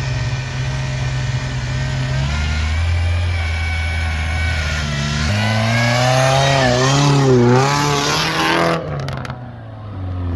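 Car engine running hard, its pitch stepping up and down and then rising and falling several times in quick succession, as when revved under load off-road; the sound changes abruptly near the end.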